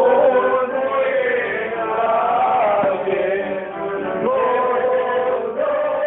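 Background music: a folk song with a male voice singing long held notes that slide and waver in pitch, over steady accompaniment.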